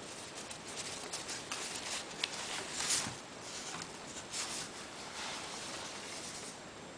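Packaging being handled by hand: a run of rustles and small clicks, the loudest about three seconds in, easing off near the end.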